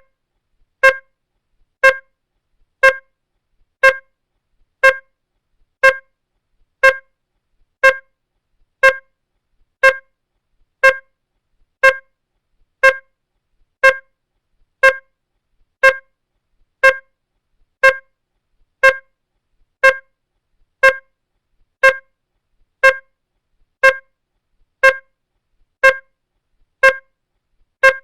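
Electronic beep repeating at an even pace, about once a second. Each beep is a short, single-pitched tone with a few overtones, identical to the last, with silence between.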